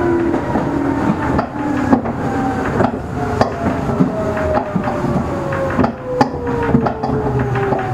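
Meitetsu 6000-series electric train heard from inside the car as it slows down. The motor and gear whine falls steadily in pitch over a running rumble, with irregular clicks and knocks from the wheels on the rails.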